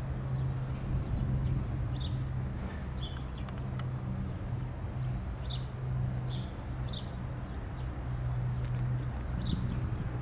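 Steady low drone of a Lockheed C-130H Hercules' four turboprop engines and propellers, holding one pitch. Small birds chirp over it in short, repeated calls.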